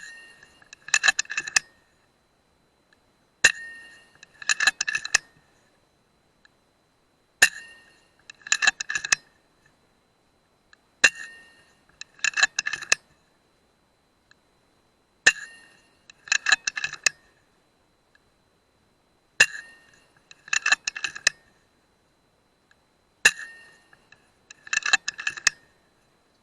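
FX Dreamline .177 PCP air rifle fired seven times, about every four seconds. Each shot is a sharp click with a fading metallic ring, followed about a second later by a quick rattle of metallic clicks as the side lever is cycled to chamber the next pellet.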